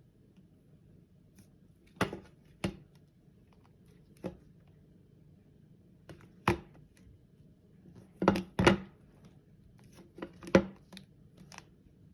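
Irregular sharp taps and knocks, some in close pairs, over a faint low hum; no ringtone plays.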